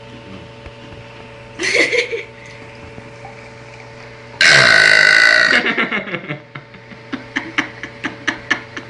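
A person burping: a short burp about a second and a half in, then a loud, long burp of about a second starting about four seconds in, its pitch dropping as it goes. A string of short sharp clicks follows near the end.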